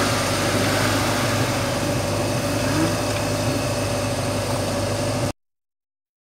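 Off-road 4x4 engines running at low speed, with a steady whine over the engine noise. The sound cuts off suddenly about five seconds in.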